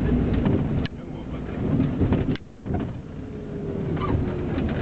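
Low engine and road rumble of a moving bus heard from inside the cabin, with scattered knocks and rattles. The rumble dips briefly about two and a half seconds in, and a faint whine comes in over the last couple of seconds.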